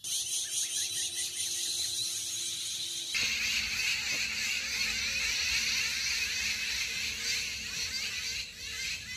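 Dense, continuous high-pitched chattering of many birds in a tree, starting suddenly and growing fuller and louder about three seconds in.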